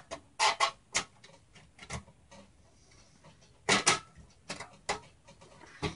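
Scattered clicks and taps of a thin metal I/O shield being pushed and snapped into the rear opening of a computer case, with a louder pair of clicks just before the four-second mark.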